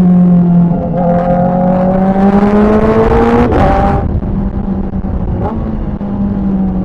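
Kawasaki ZX-4RR's inline-four engine accelerating, its pitch rising for a few seconds, then a quick upshift about three and a half seconds in, after which it runs on at a steadier pitch.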